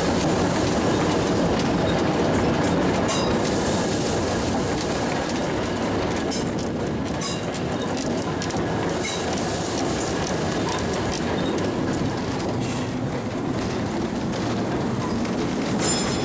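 Vintage electric streetcar running along the track, heard from inside the car: a steady rolling rumble of wheels on rails with scattered clicks.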